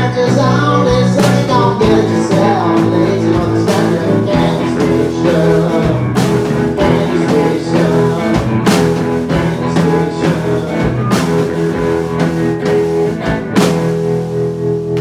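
Live roots rock trio playing: electric guitar over bass guitar and a drum kit, with steady drum hits. Near the end a hard accented hit is followed by chords left ringing.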